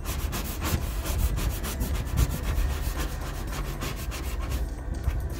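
Felt-edged squeegee scraping in quick, repeated strokes over the transfer tape of a vinyl side stripe, pressing the decal onto a car's door panel.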